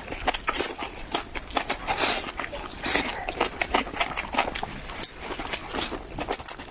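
Close-miked chewing of enoki mushrooms: a fast, irregular run of crunchy clicks and smacks.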